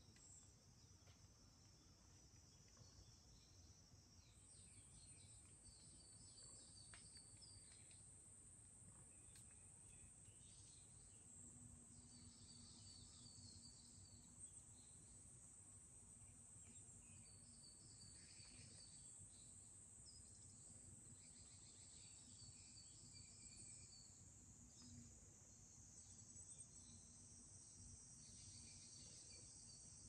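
Faint forest ambience: a steady high-pitched insect drone that strengthens about four seconds in, with a small bird repeating a short, high chirping phrase every few seconds.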